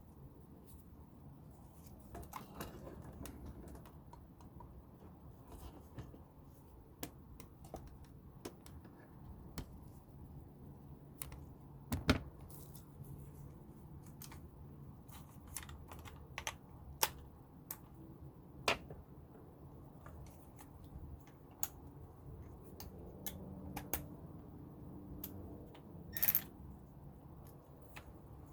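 Scattered small clicks and taps of hand tools and hose parts being handled while fitting a power steering hose, with a louder knock about twelve seconds in and a short rattle near the end.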